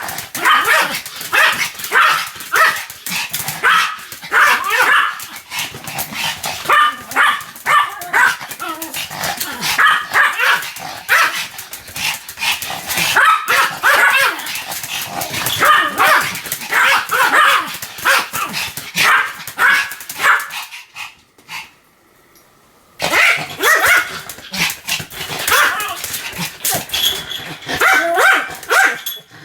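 Pomeranian barking repeatedly in quick high-pitched yaps, about two a second, with a break of about two seconds roughly two-thirds of the way through.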